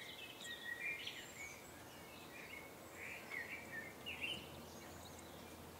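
Faint birdsong: a run of short chirps and quick whistled phrases, one after another.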